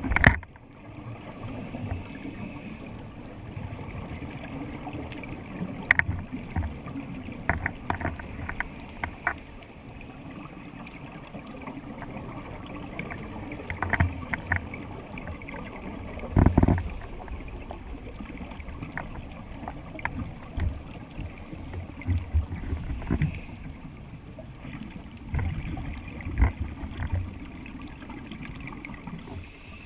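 Underwater sound heard through a camera housing: a steady low rumble with scattered sharp clicks. Every few seconds come surges of scuba regulator breathing and exhaled bubbles.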